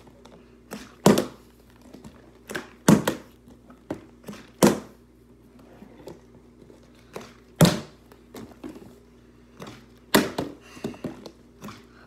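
Partly filled plastic drink bottle being flipped and hitting a wooden floor: a dozen or so sharp thuds at uneven intervals, the loudest about a second, three, four and a half, seven and a half and ten seconds in.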